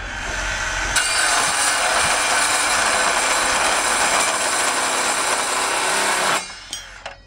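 Hilti SCM 22-A cordless metal-cutting circular saw cutting through a steel reinforcing bar. The cutting noise comes in strongly about a second in, holds loud and steady, and stops abruptly about a second before the end.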